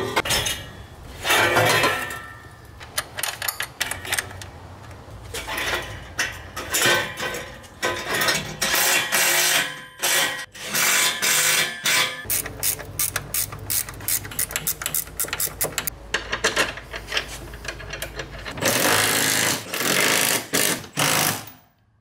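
Clanks and clicks of a titanium exhaust being fitted back up under a lifted car, with short runs of a cordless power tool tightening its fasteners. The knocks are irregular, with denser rattling spells about halfway through and again near the end.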